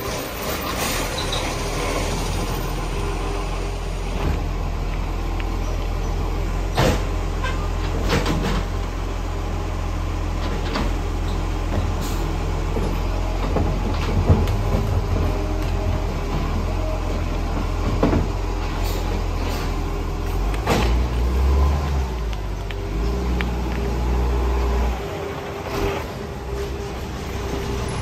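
Side-loader garbage truck's diesel engine running with a steady low hum and a higher steady whine, broken by several sharp clunks from its bin-lifting gear and body. The engine gets louder for a few seconds about three quarters of the way through, then drops back.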